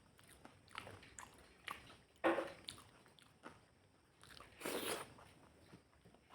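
Close-miked eating: wet chewing and biting of pangas fish curry, with small mouth clicks and two louder crunchy bites, about two seconds in and near five seconds in.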